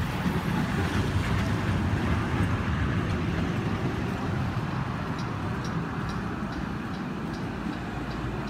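Historic tramcar and trailer pulling away along the track, a low rumble that eases a little as it moves off. From about halfway a rapid high ticking starts, about two or three ticks a second.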